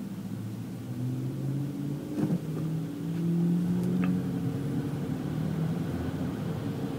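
Car engine and road noise heard from inside the cabin while driving on the freeway: a steady hum that shifts in pitch, with a short click about two seconds in.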